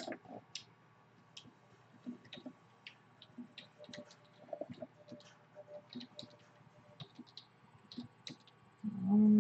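Computer keyboard typing and mouse clicking: light, irregular clicks. Near the end a short, loud, steady pitched hum.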